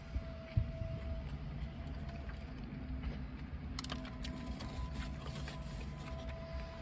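Snow plow truck engine running steadily, a low rumble with a faint steady whine over it.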